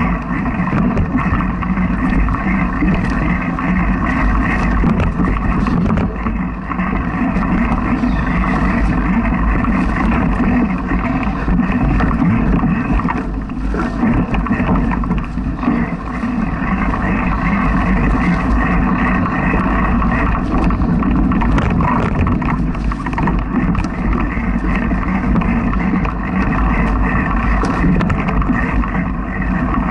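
Mountain bike rolling over a dry, leaf-covered dirt trail, heard through a bike-mounted camera: a steady, loud rumble of tyres and frame vibration with scattered rattling clicks.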